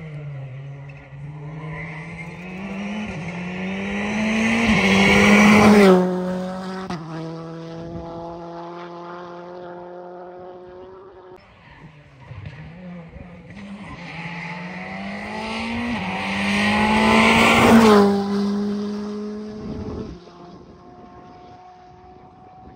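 Two rally cars pass at speed one after the other, about twelve seconds apart. Each engine note climbs through gear changes and grows louder as the car approaches, is loudest as it goes by, then drops in pitch and fades away.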